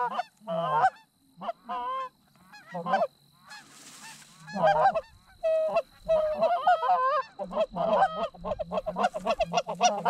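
Canada goose honks and clucks, many short calls in quick succession that come faster and denser near the end. A brief rush of noise about four seconds in.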